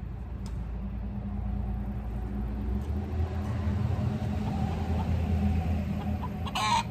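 Chickens clucking over a steady low rumble, with one short, loud sound near the end.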